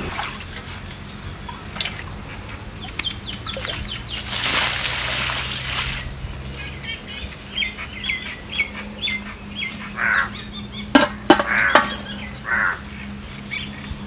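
Domestic fowl calling: runs of short, quickly repeated calls, with a burst of hissing noise about four seconds in and a few sharp knocks near the eleven-second mark.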